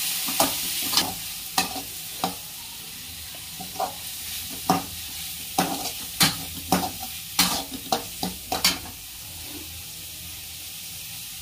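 Onions, green chillies and ginger-garlic paste sizzling in hot oil in a steel kadhai with a steady hiss, while a perforated steel spatula stirs them, scraping and clinking sharply against the pan at irregular moments.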